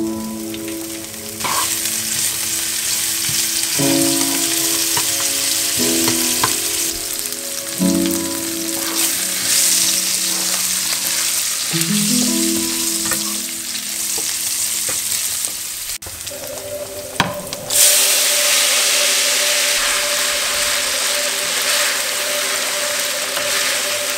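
Diced bacon sizzling as it fries in hot oil in a frying pan, stirred now and then with a plastic spatula. The sizzle starts about a second and a half in, as the meat hits the oil, and grows louder about three-quarters of the way through.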